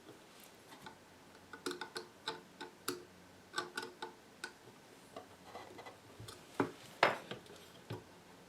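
Small metal radio parts being handled: a string of light, irregular clicks and clinks, with two louder clacks near the end.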